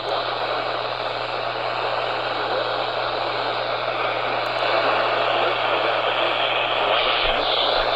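Steady hiss of radio static with a low hum underneath, from a receiver tuned in ahead of an emergency alert broadcast.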